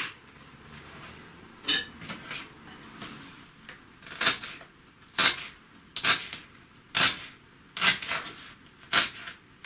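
Kitchen knife chopping fresh coriander on a cutting board: a couple of scattered chops, then steady chops about one a second from around four seconds in.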